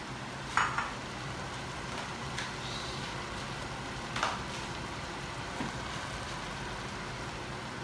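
A pot of chicken adobo with boiled eggs simmering on the stove, giving a steady bubbling hiss. A few short clicks cut through it, about half a second in, near two and a half seconds and about four seconds in.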